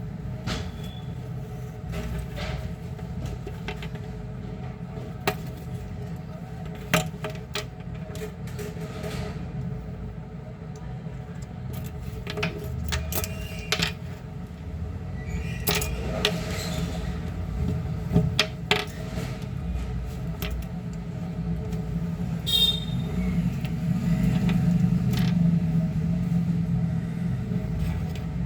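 Steady low rumble with scattered sharp clicks and taps, a few louder ones about 5, 7 and 18 seconds in.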